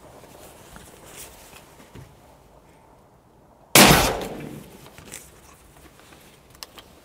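A single hunting rifle shot about four seconds in, sudden and very loud, with an echo that trails off over about a second.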